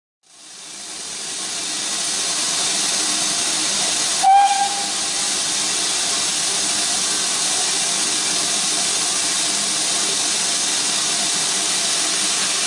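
Stationary BR Standard Class 9F 2-10-0 steam locomotive No. 92134 hissing steam steadily, fading in over the first couple of seconds. About four seconds in there is a short, loud shrill note.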